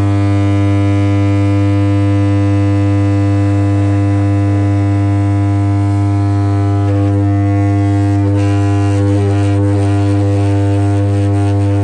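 Home theatre amplifier's speaker giving out a loud, steady hum, a low buzz with many overtones. This hum is the unit's sound fault, which the repairer puts down to a failed 7294 (TDA7294) sound amplifier IC and one or two burst capacitors.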